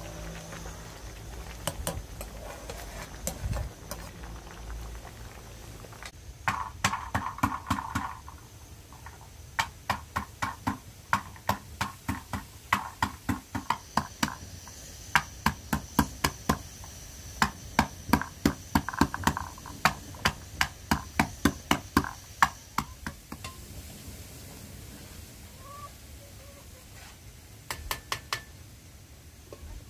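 A metal masher pounding garlic cloves in a steel pan: repeated ringing metal-on-metal strikes, about three a second, in runs with short pauses, stopping a few seconds before the end.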